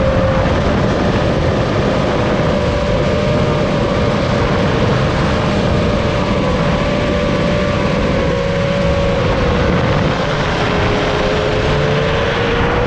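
FPV quadcopter drone's motors and propellers whining in flight over a rush of prop and air noise. The whine holds a fairly steady pitch, sags a little about ten seconds in, then climbs again near the end.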